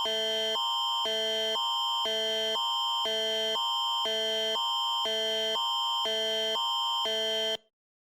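Canadian Alerting Attention Signal (the Alert Ready tone): an electronic alert tone that swaps every half second between a lower chord and a higher chord over one constant high tone, then cuts off near the end. It is the attention signal that opens a Canadian emergency alert broadcast.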